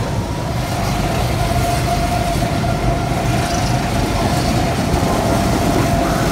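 Go-karts running on a wooden-plank track: a steady, loud low rumble of kart engines and wheels on the boards, with a continuous whine held at one pitch.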